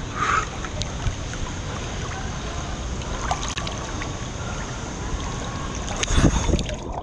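Wind blowing on the microphone outdoors, a steady rushing noise with a stronger deep gust about six seconds in.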